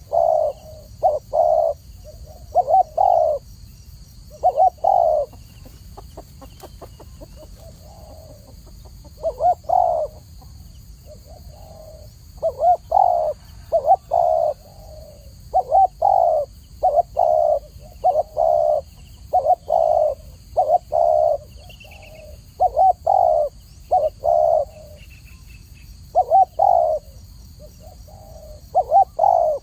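Spotted dove cooing: phrase after phrase of two to four low coos, with short pauses between the phrases. A few faint clicks about six seconds in.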